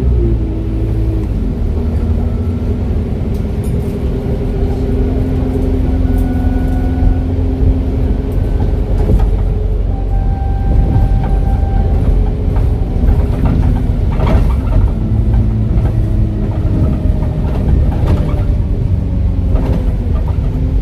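Diesel-converted ADL Enviro 400H double-decker bus running under way: a steady heavy engine drone with thin whistling tones coming and going over it, typical of its turbo. A few sharp knocks or rattles in the second half.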